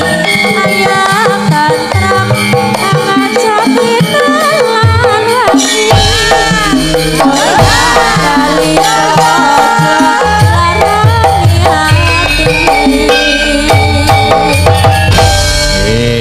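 Javanese gamelan music for a wayang kulit show, with kendang hand drums keeping a steady pattern. Female sinden sing a wavering melodic line through microphones.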